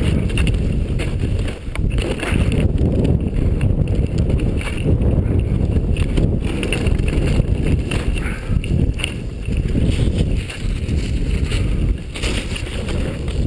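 Wind buffeting an action camera's microphone during a downhill ski run, a loud, rumbling rush that swells and dips, mixed with skis scraping over packed snow.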